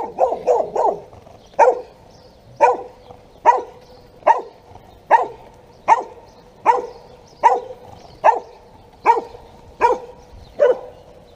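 Small dog barking repeatedly: a quick flurry of barks at first, then single barks at a steady pace of a little more than one a second.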